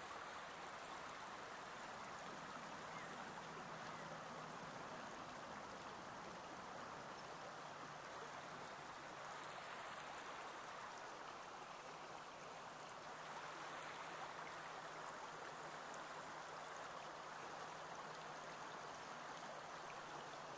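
River current flowing, a faint steady wash of moving water.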